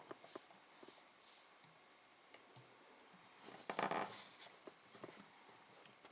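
Fingers handling and untwisting the twisted copper pairs of a CAT5 cable: faint scattered clicks and scratchy rustling, with a louder rustle lasting under a second about three and a half seconds in.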